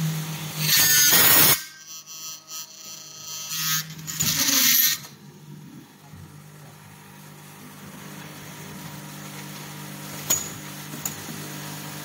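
Automatic screw-installing machine driving screws into an aluminium floor-wiper profile: two loud, roughly one-second bursts of machine noise over a steady hum, then two sharp clicks near the end.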